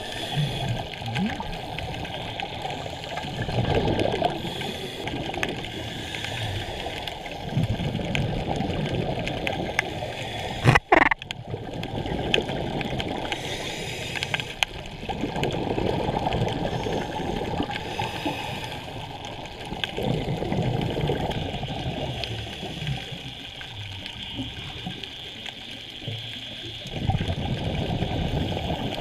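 Scuba diver breathing through a regulator, heard underwater through a GoPro housing: exhaled bubbles rush out in bursts every few seconds. One sharp knock sounds about eleven seconds in.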